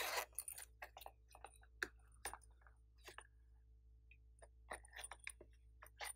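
Plastic rabbit-shaped case being handled: a short scraping rustle at the start, then scattered light clicks and taps of plastic against plastic, bunching together near the end.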